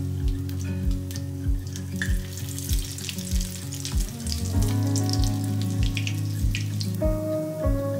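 Oil crackling and sizzling as a patty shallow-fries in a cast iron skillet, busiest in the middle seconds as it is turned with a fork. Background music with a soft, steady beat plays under it.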